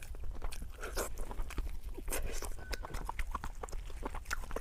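Close-miked chewing of pork belly, heard as many short, irregular mouth clicks.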